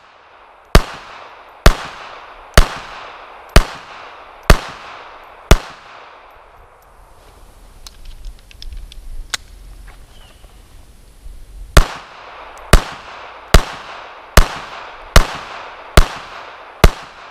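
Beretta 3032 Tomcat pocket pistol firing .32 ACP 71-grain full metal jacket rounds, aimed shots about one a second. Six shots, then a pause of about six seconds with a few faint handling clicks, then seven more. The roughly 25-year-old rounds fire and cycle without a stoppage.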